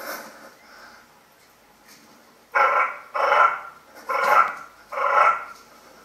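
A dog barking four times in an even series, each bark about half a second long.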